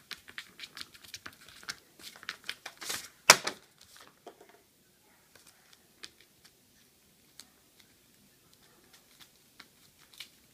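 Rapid light taps and clicks of a cork being batted about on a plastic tablecloth and small paws scrambling over papers, with some paper crinkling. One much louder knock comes about three seconds in, after which only scattered faint ticks remain.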